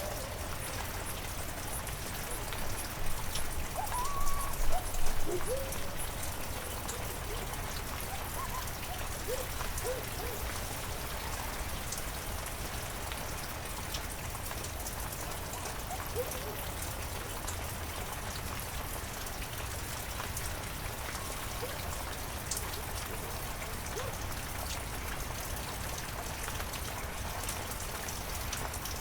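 Steady heavy rain with a dense patter of drops. A few short, pitched calls rise and fall about three to five seconds in, louder than the rain.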